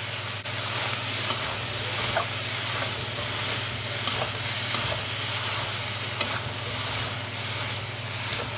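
Shredded cabbage stir-frying in a wok: a steady sizzle as it is tossed, with a metal spatula clinking and scraping against the pan several times.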